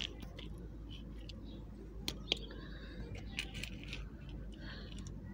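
Small green plastic trowel scraping and digging into clumpy garden soil: short scratchy scrapes, with a couple of sharp clicks about two seconds in.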